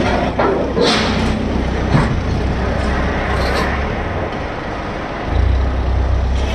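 Forklift engine running with a steady low hum, revving up about five seconds in as it pushes a steel load into a shipping container. A few metal knocks and clanks sound in the first two seconds.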